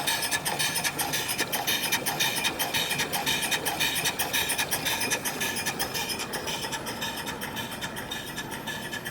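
Cast-iron Wagener steam pump running on steam at about 70 pounds of boiler pressure: a steady, fast, even clatter of its valve gear and steam exhaust.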